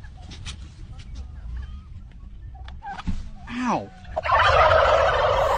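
Flock of white domestic turkeys gobbling: a few single falling calls, then about four seconds in the whole flock gobbles at once in a loud chorus. A low rumble runs underneath.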